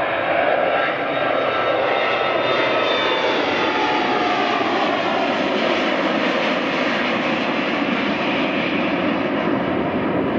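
Embraer ERJ-175LR's twin GE CF34-8E turbofan engines at takeoff power as the jet climbs out, a steady loud rushing noise. Faint whining tones within it slowly fall in pitch as the aircraft moves away.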